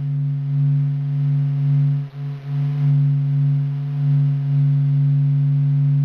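Sonified SOHO solar-oscillation data: low-frequency waves in the Sun's plasma, sped up into a deep, steady drone like a didgeridoo. A second tone sits above it, with fainter overtones and a faint hiss. The drone swells and eases slowly and briefly drops out about two seconds in.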